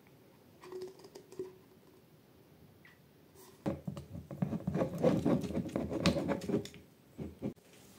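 A tint brush stirring hair dye and developer in a bowl: a quick run of scraping and tapping for about three seconds starting around the middle, after a few faint clicks.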